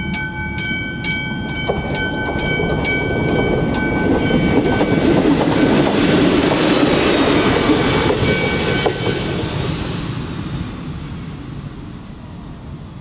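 Level-crossing warning bell (classic bell on AŽD 71 signals) ringing at about three strokes a second while a ČD class 814 RegioNova diesel railcar passes over the crossing. The train's rumble and wheel noise build up to their loudest about halfway through, and then the bell stops and the train noise fades away.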